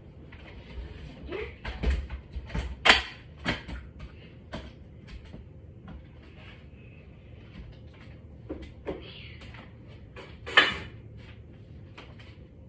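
Kitchen handling noises: an irregular run of clicks, knocks and clatters of containers and utensils on a counter. Two knocks, about 3 s in and about 10.5 s in, are louder than the rest.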